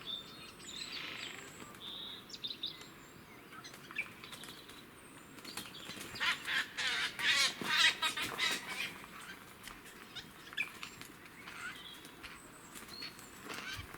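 Eurasian jays squabbling: a loud run of harsh screeching calls for about three seconds in the middle, with scattered softer calls before and after.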